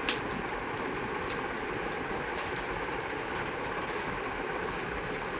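Steady background noise with a few short, sharp clicks scattered through it, about a second or so apart.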